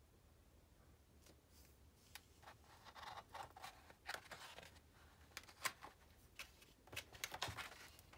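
Faint paper rustles and small taps of a hand turning the large pages of a hardcover picture book, a string of short scratchy sounds starting about two seconds in.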